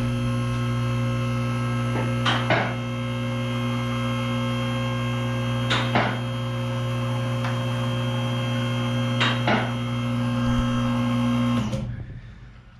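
Two-post car lift's electric hydraulic pump motor running with a steady hum as it raises a car, cutting off near the end. A few pairs of sharp clicks sound along the way.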